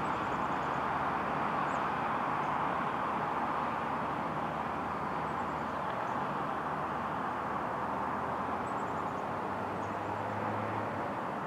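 Steady road noise of cars on an asphalt road, mainly tyre hiss, easing off slightly. A few faint, short, high chirps sound over it.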